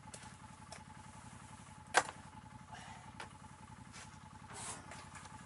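Small knocks and clicks of fishing gear being handled on the ice, the sharpest a single click about two seconds in, over a steady low hum.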